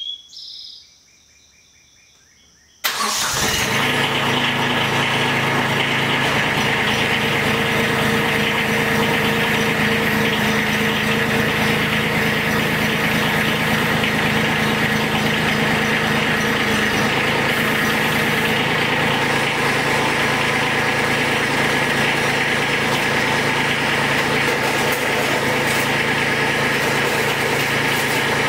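The Kubota B2301 compact tractor's three-cylinder diesel engine starts about three seconds in and then runs steadily.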